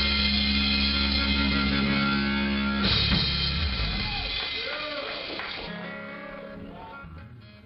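Rock music from a cover band: a full held chord rings until about three seconds in, then the music changes and fades out near the end.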